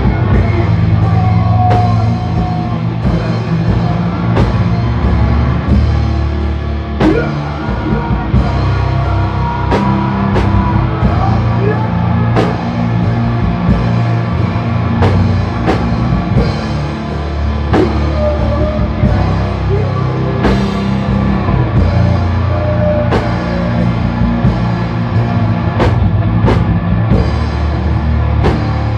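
Live rock band playing loud: electric guitar and bass-heavy chords over a drum kit, with regular snare and cymbal hits.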